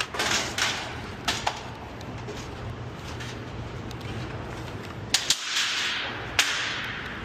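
Sharp bangs and knocks of demolition work: four in the first second and a half, then three more between about five and six and a half seconds in, with a rushing noise between the later ones.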